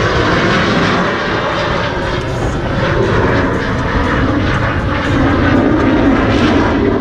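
Airplane flying overhead, a loud, steady engine drone that grows stronger in the second half.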